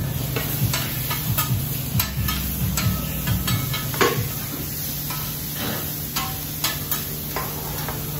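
Steel spatulas clinking and scraping on a flat-top hibachi griddle as diced steak and chicken are stirred and turned, many irregular clicks over a steady sizzle. A steady low hum runs underneath.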